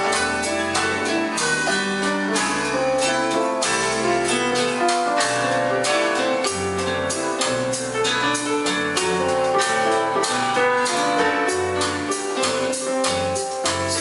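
Band music with a moving bass line, guitar, drums and keyboard, with a steady beat of percussive strokes.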